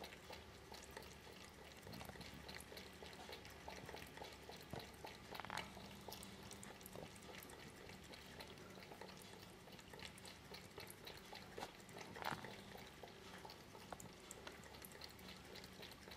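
Cat lapping water from inside a ball-shaped floor vase: faint, quick wet clicks of the tongue, with two louder laps about five and twelve seconds in.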